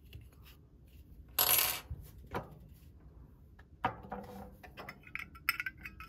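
Small metal clicks, scrapes and ringing clinks from a Zippo lighter's steel insert and case being handled during refilling. A short sharp rasp comes about a second and a half in, and the clinks gather toward the end.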